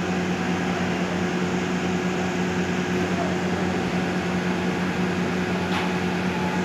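A steady machine hum with a hiss, even in level throughout, and one faint click near the end.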